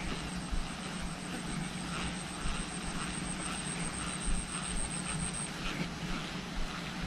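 A steady low drone like a distant engine. It is joined by a high, rapidly pulsing whine that stops about five and a half seconds in.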